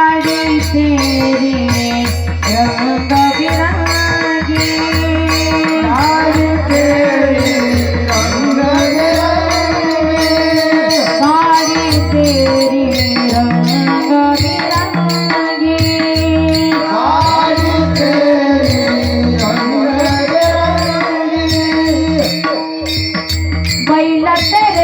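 A woman singing a slow, gliding melody over regular hand-drum beats and the clash of small cymbals.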